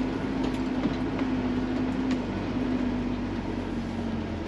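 A motorhome's engine running steadily while the vehicle moves slowly, heard from inside the cab, with a few faint clicks over the hum.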